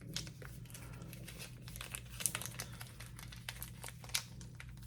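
Crinkling and tearing of packaging as a double-taped parcel is worked open by hand: a run of irregular crackles and small snaps.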